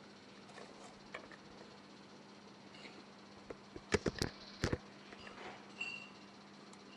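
Sharp clicks and knocks of hard objects being handled: a few faint ticks, then a quick run of about six louder knocks a little before halfway, with a few small clicks after.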